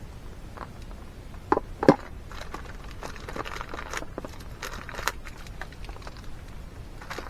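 Plastic snack packet of Japanese-style peanuts being handled and opened: two sharp clicks about a second and a half in, then crinkling rustles for a few seconds.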